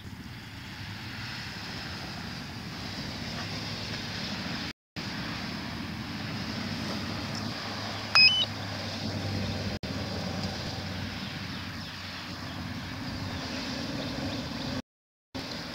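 Steady rushing background noise, then about eight seconds in a short, loud electronic beep that steps up in pitch from the DJI Phantom 4 remote controller. It is the return-to-home button being pressed while the controller has lost its link to the drone.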